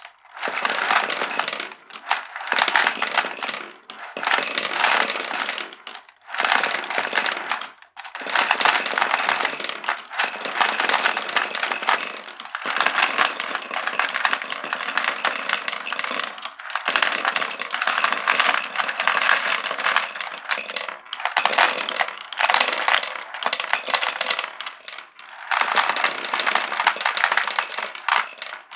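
Glass marbles rolling and clattering along a wooden marble run, a dense rattle of many small clicks. It comes in runs of a few seconds with brief gaps between them.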